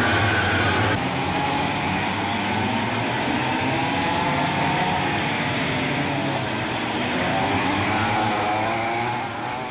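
Racing kart engines buzzing, their pitch rising and falling as the karts accelerate and ease off, with an abrupt change in the sound about a second in. The engines are two-stroke.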